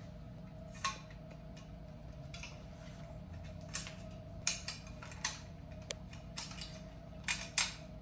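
Hydraulic brake hoses being pushed by hand through a triathlon bike's aerobars and frame, with the routing guides taken out. Scattered light clicks and rustles of hose against the bars and tubes, irregular, over a low steady hum.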